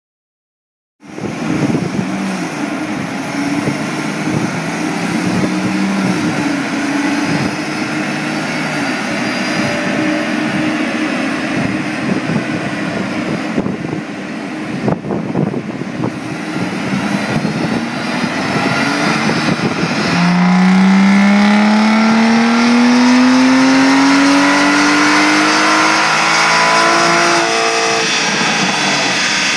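Aston Martin Rapide's V12 engine running under load on a chassis dynamometer, breathing through a full aftermarket exhaust (headers, catalytic converter, mid-pipe and tailpipes). The revs rise and fall at first. From about two-thirds in comes a full-throttle pull whose pitch climbs steadily, the loudest stretch, with a quick jump in pitch near the end.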